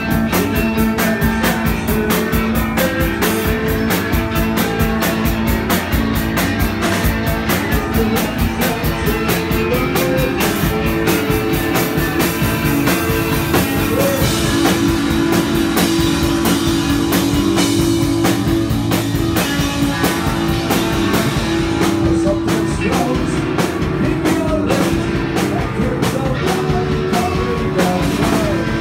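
Live rock band playing: drum kit keeping a steady beat under electric guitar, with a singer on a microphone.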